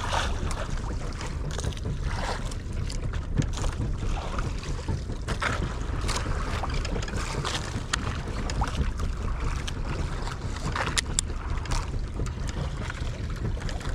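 Wind buffeting the microphone on a small boat at sea, with water lapping against the hull and scattered short knocks and splashes.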